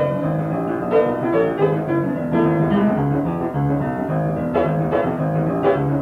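Solo boogie-woogie piano: a repeated left-hand bass figure gives a strong rhythmic and harmonic outline under right-hand chords and figures.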